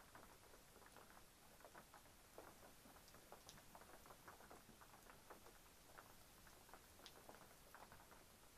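Faint light rain: scattered raindrops pattering irregularly, several soft ticks a second over a low hiss.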